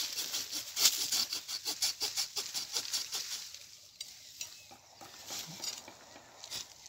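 Small curved hand pruning saw cutting through the trunk of a young plum tree in rapid rasping back-and-forth strokes. The strokes weaken in the middle and pick up again near the end.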